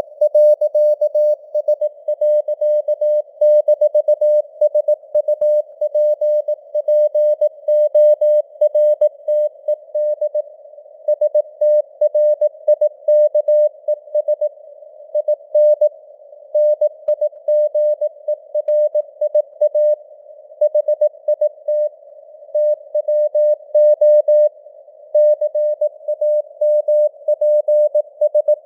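Morse code (CW) sent at 18 words per minute: a single mid-pitched tone keyed on and off in rapid dots and dashes with short gaps between letters and words. A soft hiss of simulated radio noise sits around the tone between characters, and the signal strength fades up and down (QSB).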